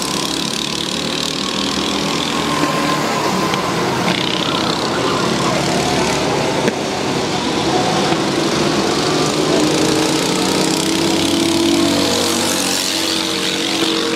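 Go-kart engines running as the karts lap the track, their pitch rising and falling with the throttle.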